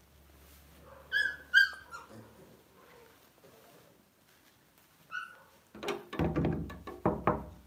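Lhasa Apso dog giving short high-pitched yelps: two in quick succession about a second in, and one more about five seconds in. Rustling and handling knocks follow near the end.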